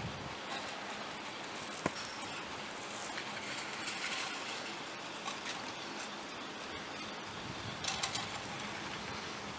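Surface ski lift's haul rope running over the sheave wheels of a line tower: a steady hiss with scattered light clicks and rattles, one sharper click about two seconds in and a few more near the end.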